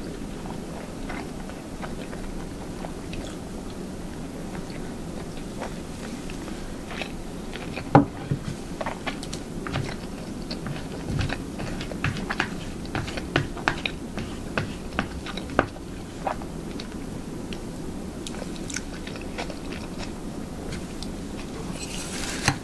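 Close-miked chewing of rice and hamburger steak, with many short sharp mouth clicks and smacks. The clicks come thickest in the middle, the loudest about eight seconds in.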